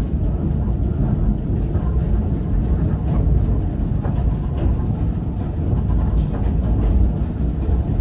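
Passenger train running along the track, heard from inside its rear observation carriage: a steady low rumble and rattle of wheels and carriage, with a few faint clicks.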